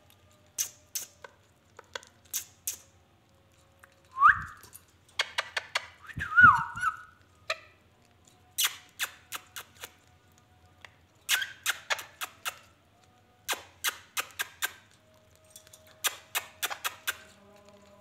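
Caged Indian ringneck parakeets making runs of quick, sharp clicks in short groups, with two short whistles about four and six seconds in, the first rising and the second wavering.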